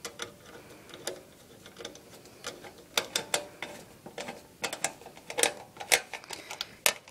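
Screwdriver turning a screw tight into a DVD drive mounted in a computer case's metal drive bay: irregular small metallic clicks and ticks, a few of them louder.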